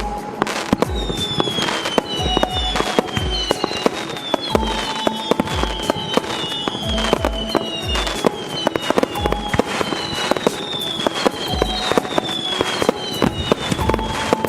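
Fireworks cake firing a rapid run of shots, with sharp bangs and crackle throughout, over background music.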